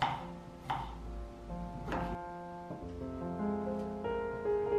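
Soft piano music, with a knife slicing radishes on a wooden cutting board: three sharp cuts in the first two seconds.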